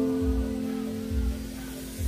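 Background music: held notes over a steady low beat about once a second.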